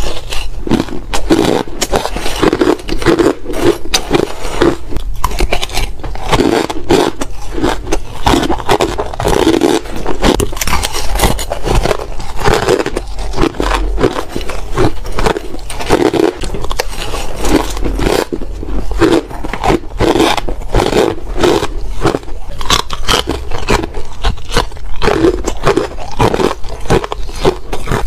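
Close-miked chewing and crunching of frozen ice chunks: a dense, continuous run of crackling crunches in a steady chewing rhythm.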